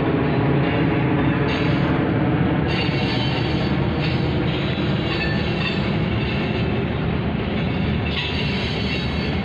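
Freight train of tank cars rolling past close by: a steady rumble of steel wheels on rail. Thin high wheel squeals rise briefly about three seconds in and again near the end.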